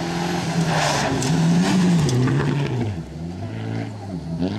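Rally car engine revving hard on a dirt stage, its pitch climbing and falling with gear changes and throttle lifts. Loose gravel sprays about a second in.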